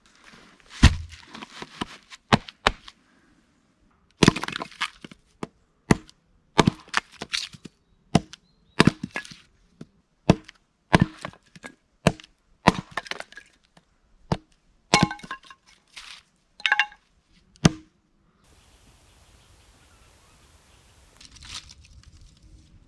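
Dry wood cracking sharply as it is broken or split into kindling for a campfire: a series of loud cracks about once a second, stopping a few seconds before the end.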